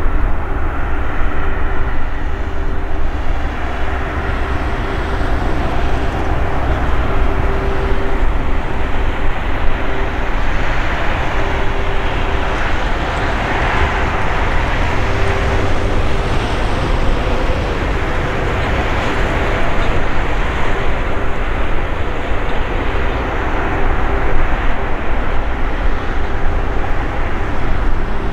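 Airbus A300-600ST Beluga's General Electric CF6-80C2 turbofan engines running at taxi power as the aircraft rolls past. It is a steady jet rumble with a hum that comes and goes, a little fuller around the middle.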